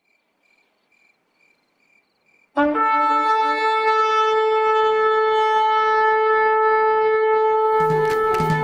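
Shofar (ram's horn) blast: after faint repeated chirps, a loud horn call starts suddenly about two and a half seconds in, with a short lower note that steps up to one long held note. Near the end, a steady drumbeat of music comes in under it.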